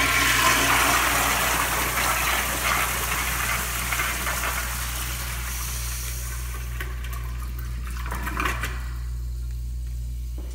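Flushometer toilet flushing: a loud rush of water into the bowl and down the drain that gradually tapers off, ending about eight and a half seconds in.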